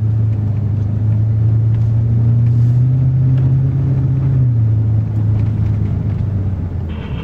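Ford F-350 pickup running in four-wheel drive, a loud, steady low engine drone. Its pitch rises gently, then drops about four and a half seconds in as the truck eases off.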